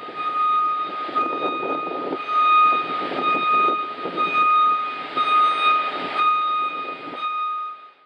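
Machinery running with a steady high whine over an uneven rumble, cutting off abruptly near the end.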